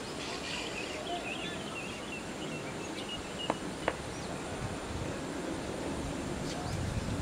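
Open-air ambience: a steady rush of wind on the microphone with faint high chirps, broken by two sharp clicks about half a second apart near the middle.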